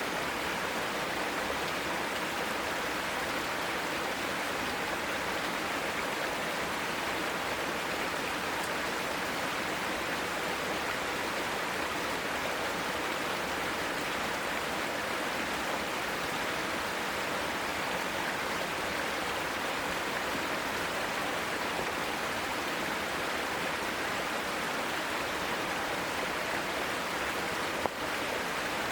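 Mountain stream rushing over rocks: a steady, unbroken sound of flowing water.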